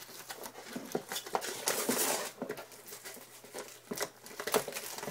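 Tip of a paper clip scraping and slitting the seal on a cardboard Apple box, with irregular scratching, rustling and small clicks as the packaging is cut and handled.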